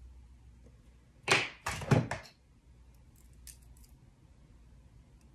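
An expanding button-spacing gauge clattering as it is picked up and pulled open, its scissor links rattling in two quick bursts, followed by a few faint ticks.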